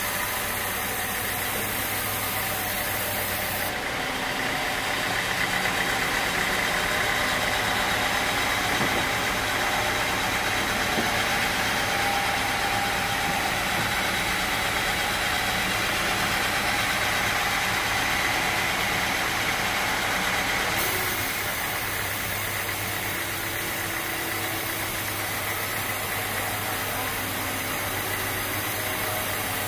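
Sawmill machinery running steadily with an engine-like drone. It grows a little louder and brighter from about four seconds in, and settles back about twenty-one seconds in.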